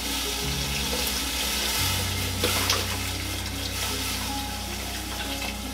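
Chicken broth pouring from a carton into a stockpot of hot vegetables, a steady splashing pour, over soft background music.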